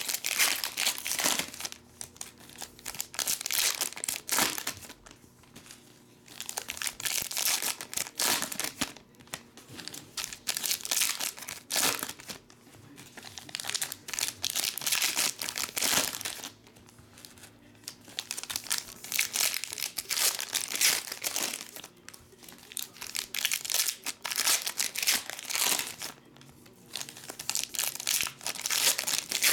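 Foil wrappers of Panini Select basketball card packs crinkling and tearing as the packs are ripped open by hand. The sound comes in bouts of a few seconds, with short quieter gaps between them.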